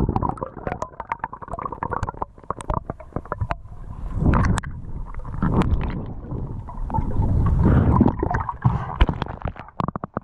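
Underwater sound heard through a GoPro's waterproof housing while free diving in fast river water: a muffled, surging rumble of moving water and bubbles, with many scattered sharp clicks and knocks.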